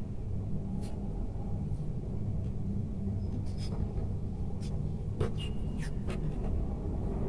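Black PVC electrical insulating tape being handled and wrapped around twisted wire joints: scattered soft crinkles and clicks over a steady low hum.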